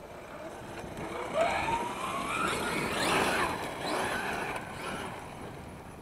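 Losi Mini WRC RC rally car's brushless motor and gearing, running a 16-tooth pinion, whining up and down in pitch as the throttle is worked, with dirt hissing under the tyres. It is loudest in the middle as the car speeds off, then fades as it pulls away.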